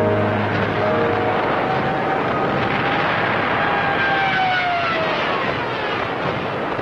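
Aircraft flying over: a steady drone with a whine that falls in pitch between about three and five seconds in.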